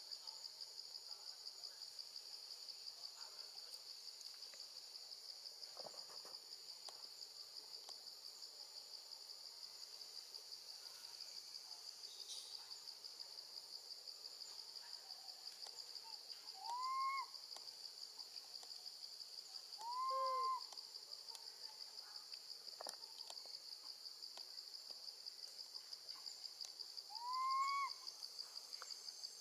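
Steady high-pitched insect chorus with a fine rapid pulse, over which a baby monkey gives three short rise-and-fall coo calls, roughly three and then seven seconds apart, each about half a second long.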